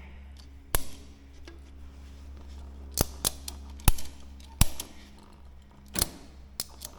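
Ratchet tie-down strap being cranked to stretch a bungee cord, with about eight sharp clicks at uneven intervals.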